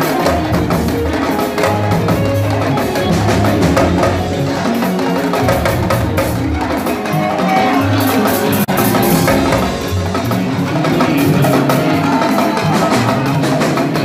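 Mbalax band music with busy drum and percussion playing.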